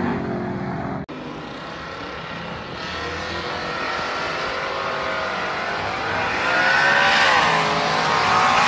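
One engine recording cuts off abruptly about a second in. Then a twin-turbocharged V8 Cadillac Escalade with an H-pipe exhaust runs at full throttle down a drag strip toward the listener, growing steadily louder and climbing in pitch, with one sharp drop in pitch near the end.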